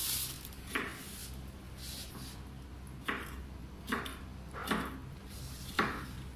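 A kitchen knife cutting carrots on a wooden chopping board: about five sharp, irregular knocks over a faint steady low hum.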